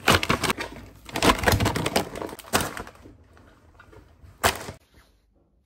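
Groceries being unpacked from a shopping bag onto a stone countertop: plastic packaging crinkling and rustling in quick crackles, with items set down. A single louder knock comes about four and a half seconds in.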